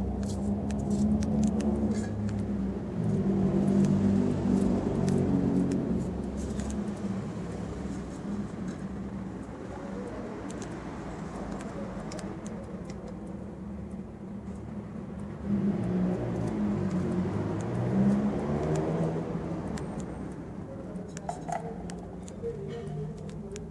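A motor vehicle engine running, swelling and bending in pitch twice, over light clicks and rustles.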